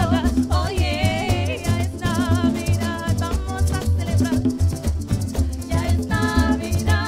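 Live parang band music: several singers with vibrato over strummed acoustic guitar and cuatro, a shaken maraca rattle and a steady pulsing bass line.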